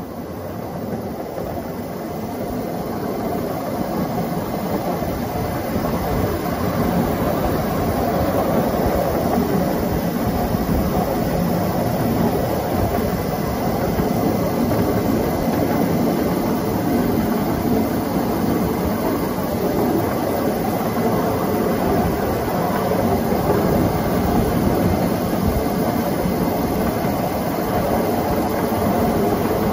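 A 10¼-inch gauge battery-electric miniature locomotive, driven by two 10 kW motors, running along the track. The running noise grows over the first several seconds as it picks up speed, then holds steady, with a faint steady high whine underneath.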